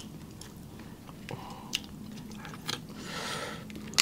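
Close-miked eating of crab and shrimp: chewing and biting, with a few sharp clicks scattered through and a short wetter, noisier stretch about three seconds in.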